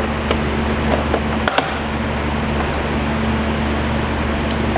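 Steady low mechanical hum, with a few faint clicks about a second and a half in.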